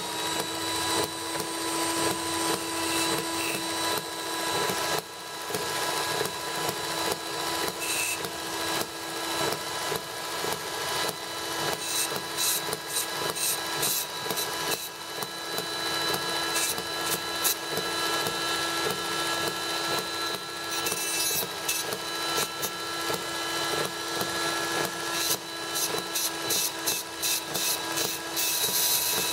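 Dremel rotary tool running with a steady whine, its cut-off wheel grinding into a small brass pipe with an uneven gritty scraping as the pipe is cut to length.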